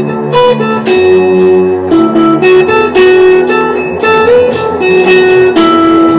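Guitar and keyboard jamming: the guitar plays a melody of single notes over a low sustained part, with high ticks keeping a steady beat about twice a second.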